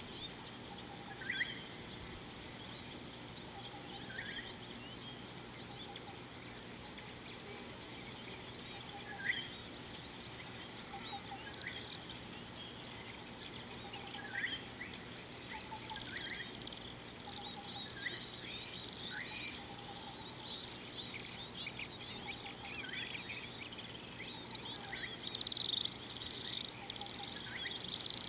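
High insect buzzing, pulsing about once a second at first and then running as one continuous trill after about ten seconds. Short bird whistles sound every few seconds, and a burst of rapid bird chirping comes near the end.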